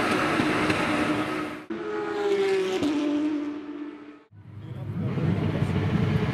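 Porsche GT3 Cup race cars' 4.0-litre flat-six engines at speed. The sound cuts off suddenly about one and a half seconds in. One engine's note then falls in pitch as the car goes by and fades out about four seconds in, and a lower rumble from several cars builds up after that.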